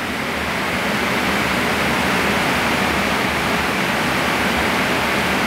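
Steady rushing noise on the flight deck of a Boeing 777-300ER in cruise flight: air rushing past the nose and windscreen, with the cockpit air-conditioning hiss, unbroken and even.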